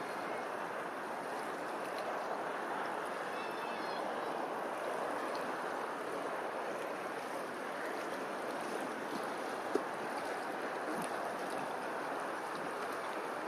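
Steady rushing of flowing water, like a stream, with a short chirping bird call about three seconds in and a single brief tick near ten seconds.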